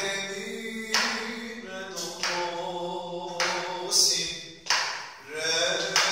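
A man sings the note names of a peşrev in makam Hüseyni, solfège style, unaccompanied. He holds each note and starts a new syllable about every second.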